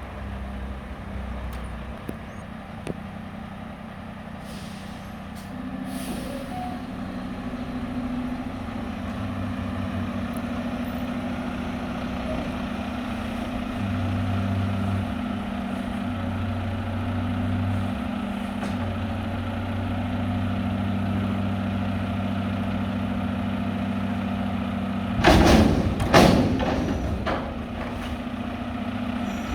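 Mack McNeilus front-loader garbage truck's diesel engine running steadily, stepping up to higher revs about six seconds in and growing louder again midway. A few loud bangs near the end.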